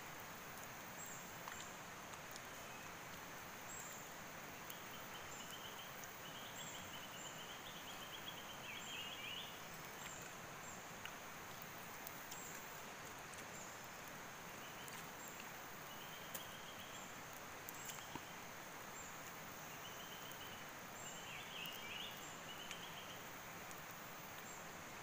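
Rainforest riverside ambience: the steady rush of a shallow rocky river under birds calling. One gives a short high chirp about once a second, and another gives warbled phrases in two bouts.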